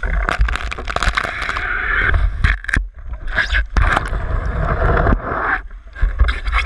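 Pool water sloshing, gurgling and splashing around a GoPro camera housing as the water gun it is mounted on is plunged under the surface and pulled back out. The rushing water noise is full of sharp clicks and is broken by two short lulls, about halfway through and near the end.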